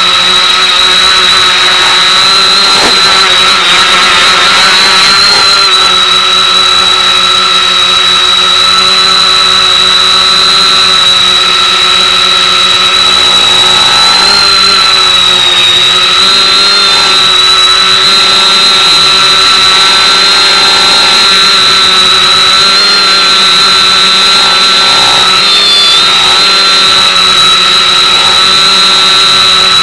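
X550 quadcopter's motors and propellers heard over its FPV video downlink: a loud, steady high whine over hiss, its pitch wavering slightly a couple of times.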